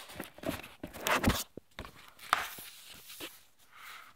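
A paperback book's page being flapped back and forth by hand: paper rustling and flapping in quick irregular strokes, with a few sharper knocks of fingers and paper, the loudest about a second in.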